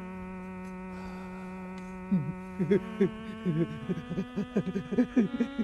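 A steady, held drone of the drama's background music, shifting pitch slightly about four seconds in. From about two seconds in, quick humming glides swoop up and down over it, about three a second.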